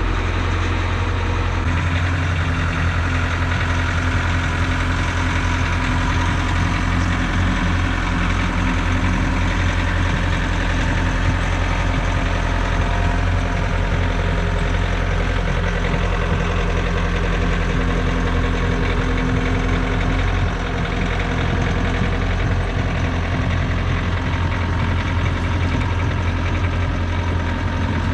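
Small gas engine of a Generac pressure washer running steadily at a constant speed.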